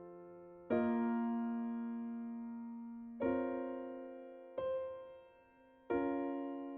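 Background music: slow keyboard chords, each struck and left to fade, a new chord every two to three seconds, four in all.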